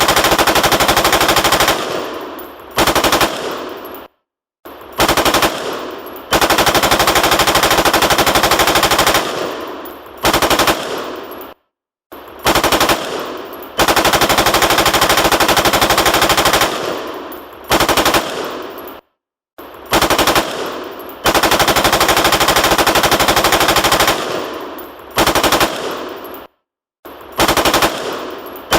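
Automatic gunfire sound effect: loud long bursts of rapid fire alternating with short bursts, each burst tailing off in a fading echo. The brief gaps fall about every seven and a half seconds, so the sequence loops.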